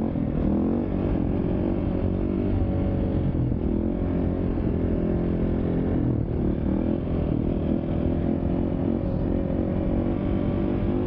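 KTM dirt bike engine pulling hard while the bike is held up in a wheelie. It holds fairly steady revs, with small rises and dips in pitch as the throttle is worked.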